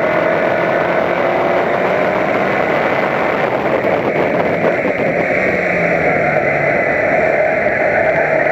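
A Toyota Corolla Levin race car's four-cylinder engine running hard at racing revs, over road and wind noise. The revs ease off about halfway through and pick up again near the end.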